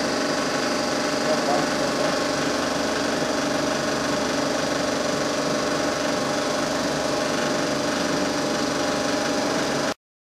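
Cinema film projector running steadily, a constant mechanical whirr. The sound cuts out abruptly for a moment near the end.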